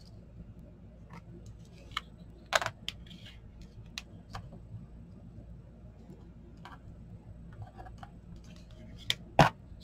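Scattered light clicks and taps of paper, card and small craft supplies, among them a glue bottle and its cap, being handled and set down on a cutting mat. Underneath runs a steady low hum.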